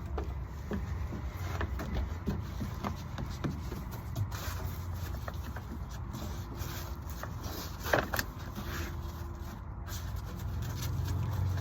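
Light scraping, rubbing and small knocks of a wooden subfloor board and building materials being handled and fitted, with a louder knock about eight seconds in, over a steady low rumble.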